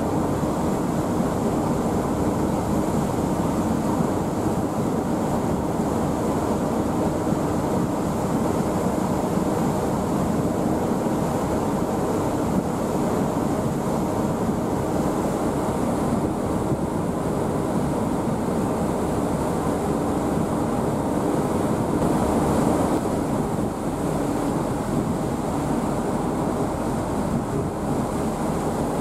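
A steady low drone mixed with wind and rushing water, running on without a break.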